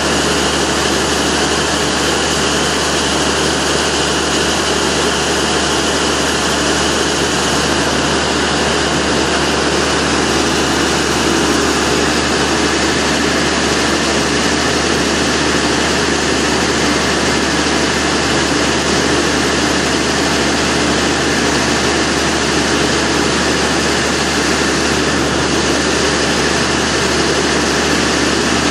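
Fire engine's diesel running steadily, a constant unbroken drone with a hiss over it, as the truck's engine does while powering its extended aerial ladder.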